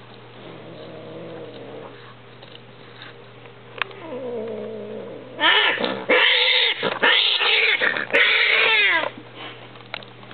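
Mating cats yowling: low drawn-out moans build to loud, harsh screeching caterwauls in several bursts a little past halfway, the last one falling in pitch. This is the typical cry at the climax of cat mating, as the pair breaks apart.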